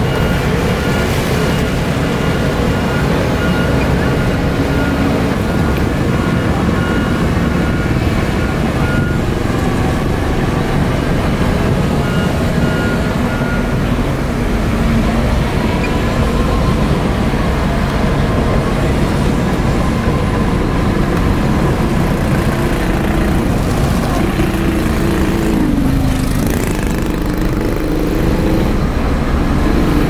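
Heavy diesel engines of a bulldozer and dump trucks working steadily, with the engine note shifting in pitch about three-quarters of the way through. A faint high beeping comes and goes in the first half.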